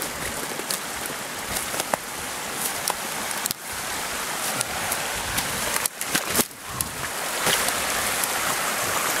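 Steady rushing hiss of flowing stream water, filling in a little near the end, with scattered crackles and snaps of dry brush and crusted snow underfoot.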